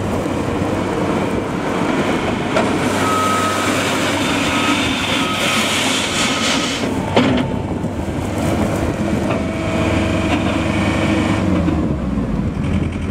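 John Deere 317 skid steer loader's turbocharged diesel engine running steadily. A thin whine comes and goes through the first half, and a single sharp knock comes about halfway through.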